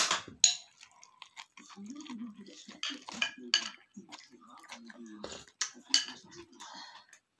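Metal spoon clinking and scraping against ceramic plates and a bowl while eating, in a series of sharp clicks.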